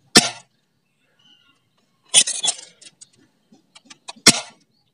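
Upgraded Azzuri Remington spring airsoft pump shotgun being fired and pumped: three sharp clacks about two seconds apart, with a few light clicks just before the last one.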